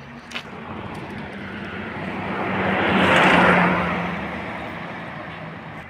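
A motor vehicle driving past on the road, its engine and tyre noise growing to a peak about three seconds in and then fading away.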